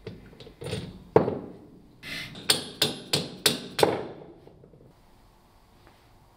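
A plastic-faced mallet hammering on an old cast-metal car jack: a few lighter knocks, then a quick run of five sharp blows about three a second, knocking out the pin that holds the jack's bevel gear.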